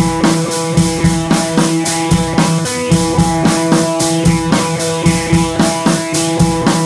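Background music with a steady drum-kit beat and guitar.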